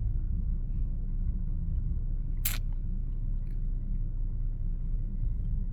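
Steady low rumble of a car idling in traffic, with one sharp click about two and a half seconds in.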